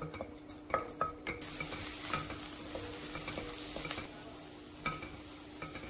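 Chopped garlic and ginger sizzling in hot oil in a nonstick pan while a wooden spatula stirs them, tapping and scraping the pan. The sizzle rises to a steady hiss about a second and a half in and eases off after about four seconds.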